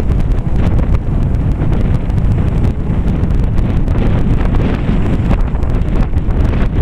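Wind buffeting the camera microphone: a loud, steady low rumble broken by irregular crackles.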